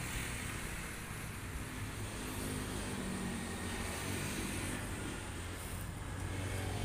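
Diesel engine of a LOVOL FR220D crawler excavator idling steadily.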